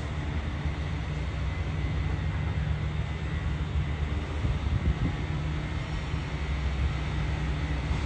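Self-propelled railway supervision van approaching along the track, its engine making a steady low drone.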